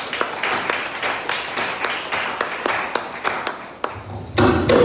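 Hand clapping in a steady rhythm, about three claps a second, then a short louder burst near the end.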